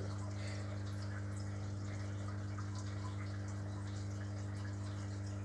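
A fish tank's aeration and filtration running: a steady low hum with bubbling, trickling water.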